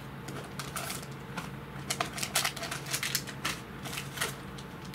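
Small cardboard product boxes and their packaging handled on a tabletop: irregular clicks, taps and crinkles as the packages are pulled out and opened, over a faint steady low hum.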